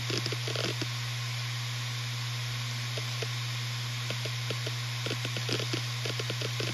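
Western Digital RE 4 TB (WD4000FYYZ) 7200 RPM hard drive running, its spindle giving a steady hum. Rapid bursts of clicking head seeks come near the start, fall away, then return from about three seconds in and grow busier toward the end, over a steady hiss.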